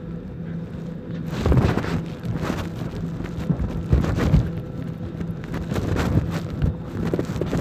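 Steady low hum of an airliner cabin. From about a second in, irregular rustling and rubbing noise on the phone's microphone as it is carried along the aisle.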